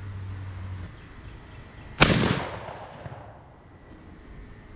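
A single shotgun shot about two seconds in, from a Beretta A400 Xtreme Plus semi-auto 12-gauge firing a BOSS Warchief copper-plated bismuth #4 load. The report rings out and dies away over about a second.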